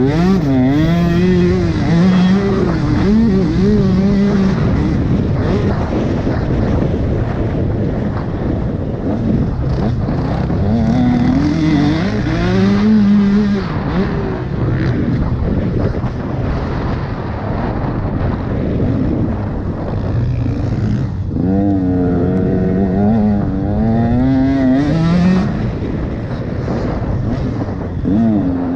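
Motocross bike engine being ridden hard, its revs rising and falling again and again as the rider accelerates, shifts and backs off.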